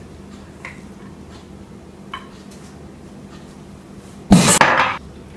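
Faint clinks of kitchenware, then about four seconds in a sudden loud clatter lasting under a second as the colander is dropped into the kitchen sink.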